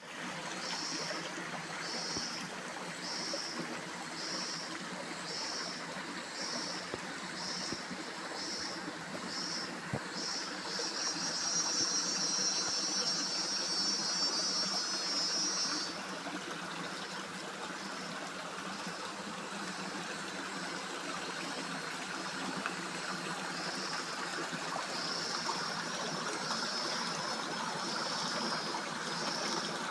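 A stream running steadily, with a cicada calling over it: high buzzing pulses about once a second that run together into one continuous buzz for several seconds in the middle, then pulse again near the end.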